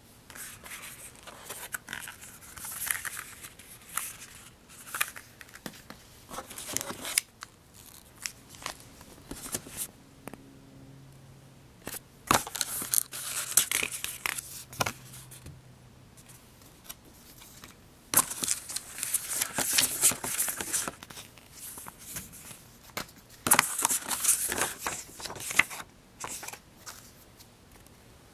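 Plastic film and paper packaging from an iPad 2 box crinkling and tearing as it is handled. The sound comes in about four bursts of a few seconds each, with sharp snaps, separated by short quieter gaps.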